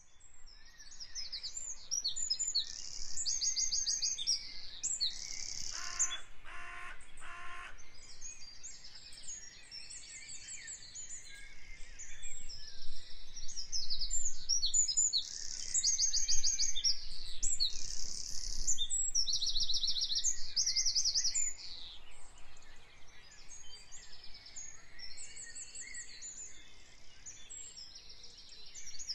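A chorus of small songbirds chirping and singing in quick, high trills, with a lower call repeated three times about six seconds in.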